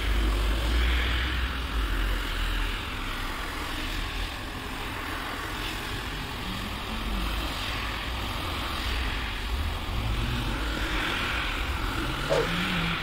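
Single-disc rotary scrubbing machine running steadily, its motor humming and its brush scrubbing through soapy foam on a wet rug.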